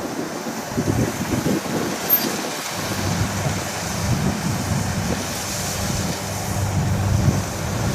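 Kubota DC60 combine harvester running while cutting rice: a steady engine and machinery noise, heavier in the low range from about three seconds in.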